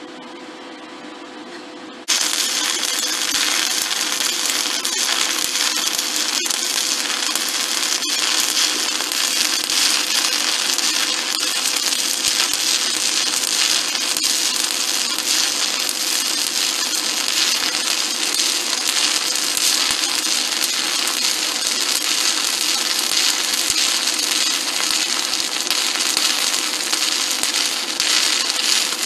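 Stick welding arc from a 5/32-inch E7018 electrode on a SanRex SanStick 160S inverter, struck about two seconds in and then burning with a steady, even crackle and hiss.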